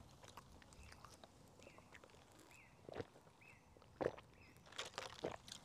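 Faint quiet: a bird gives four short, identical chirps about a second apart, with a few soft clicks from about three seconds in.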